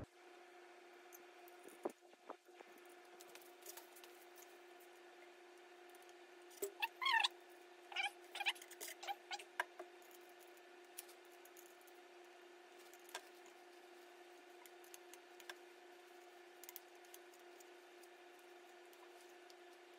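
Faint clicks and a few short squeaks over a steady low hum, as a Shimano Deore crank arm is worked loose on a mountain bike. The squeaks come in a cluster about a third of the way in.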